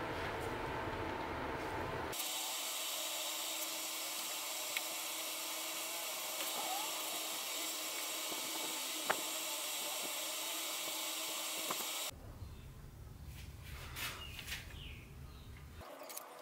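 A small electric power tool running steadily for about ten seconds with an even whine, starting about two seconds in and cutting off abruptly; a low rumbling noise comes before and after it.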